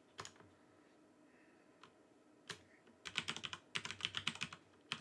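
Typing on a computer keyboard as a password is re-entered: a few scattered clicks, then two quick runs of keystrokes from about three seconds in.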